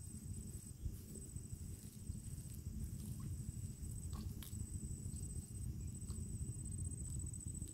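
Wind rumbling on the microphone in open country, with a faint, steady high-pitched whine that breaks off now and then and a few small clicks about four seconds in.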